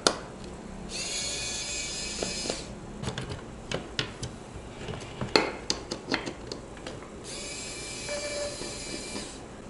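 Pen-style electric screwdriver whining as it runs twice, about a second in and again near the end, each run lasting around two seconds, backing out the screws of a small ITX case's cover. Clicks and knocks of the case being handled fall between the runs.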